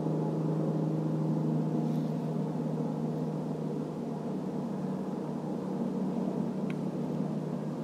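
A steady, low engine-like hum holding one constant pitch, with a single faint click near the end.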